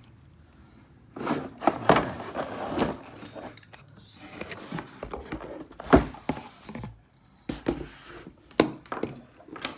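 Unboxed faucet parts and packaging being handled and set down on a hard surface: scattered knocks and thunks, with a short rustle about four seconds in.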